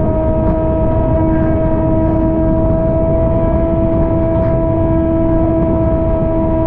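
Kawasaki ZX-6R's inline-four engine running steadily under way, its pitch rising slightly. Beneath it is a constant rush of wind and tyre noise on the wet road.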